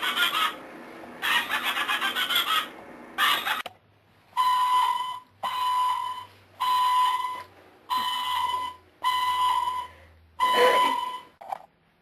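Electronic sound effects from a toy wand: a fast pulsing, rattling effect in three bursts, then a whistle-like tone repeated six times, about once a second.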